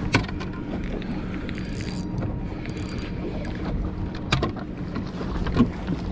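A boat motor running steadily with a low hum, under wind and water noise. A few sharp knocks on the boat, the loudest just after the start, another about four seconds in and one near the end.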